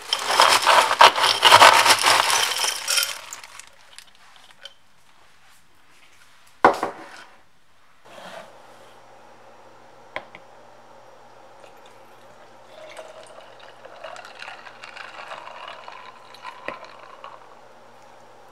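Ice cubes clattering loudly for about three seconds as a glass jar is scooped through a freezer's ice bin, then a single sharp knock as the jar is set down on a counter. Later, over a faint steady hum, coffee is poured into the jar of ice for a few seconds.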